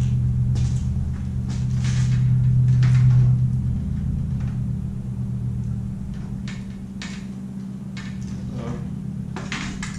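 Steady low hum, loudest about three seconds in, with a few light clicks and knocks as fishing rods are set into a PVC rod holder.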